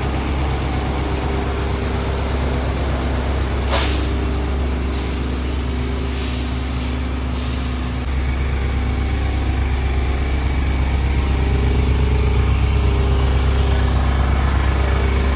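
Turbocharged Honda K24 engine idling steadily with a low rumble. About four seconds in there is a sharp click, followed by a high hiss lasting about three seconds.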